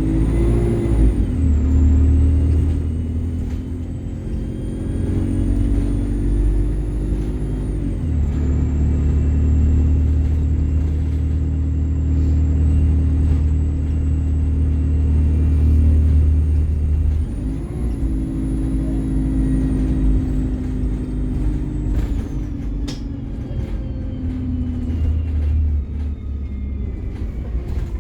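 Bus engine running under way, heard from aboard, with a steady low drone whose note shifts with gear changes about eight and seventeen seconds in. A faint high whine rises and falls above it.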